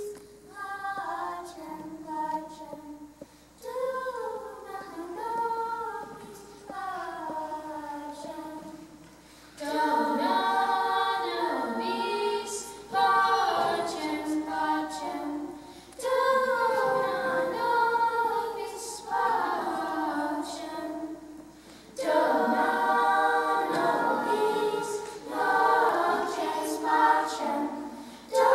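A children's choir singing unaccompanied, in held sung phrases with short breaths between them. The sound grows fuller and louder about ten seconds in.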